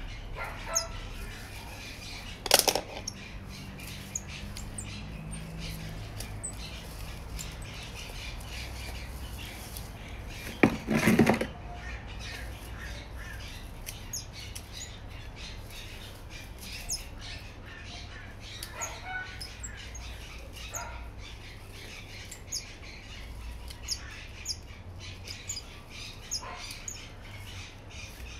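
Scissors snipping through paco fern stems in short, crisp clicks, scattered irregularly, with two louder knocks, about two and a half seconds in and around eleven seconds.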